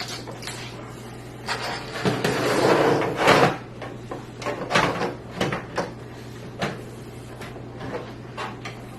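An EVGA power supply being slid into the bottom bay of a PC case: a scraping slide about two seconds in, then a string of short clicks and knocks as it is seated.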